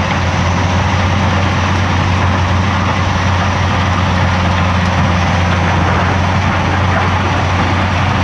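Tracked mobile rock crusher running steadily: a diesel engine drone under a continuous rush of broken stone being crushed and conveyed, fed by a Caterpillar tracked excavator working alongside.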